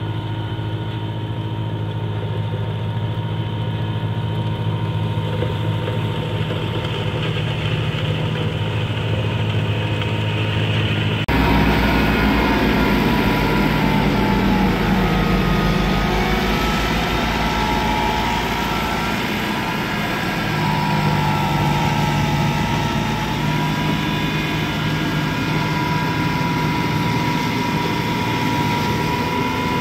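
Iseki compact tractor engine running steadily while driving its front-mounted snowblower through deep snow. About eleven seconds in the sound jumps abruptly louder, with more hiss from the blower throwing snow.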